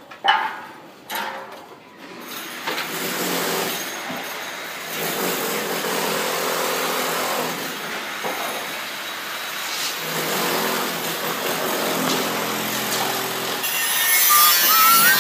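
Steady noise of a power tool running on a construction site, starting about two seconds in, with a faint hum underneath.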